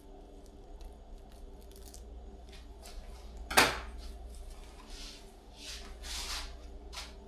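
Small tools and materials handled on a workbench: scattered clicks and rustles with one sharp clink about three and a half seconds in, over a low steady hum.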